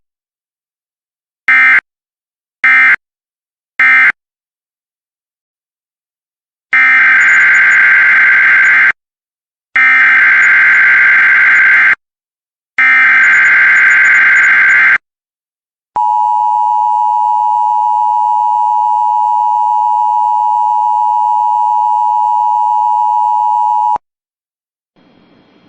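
Emergency Alert System data and alert tones. First come three short buzzy digital bursts about a second apart: the end-of-message codes closing the previous alert. Then three longer bursts of about two seconds each, the SAME header codes of the next alert, followed by the steady attention tone held for about eight seconds, which cuts off sharply.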